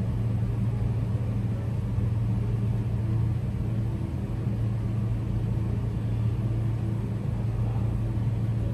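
Steady low hum that holds an even level throughout, with no clicks or other events.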